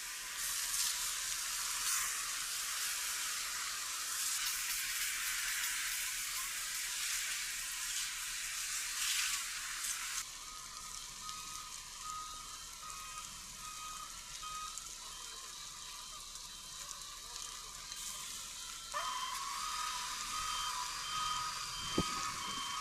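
Burning pine forest crackling and hissing: a dense, thin hiss with sharp crackles for about the first ten seconds. Then the fire noise drops and a regularly repeating electronic beep comes in, which grows louder near the end.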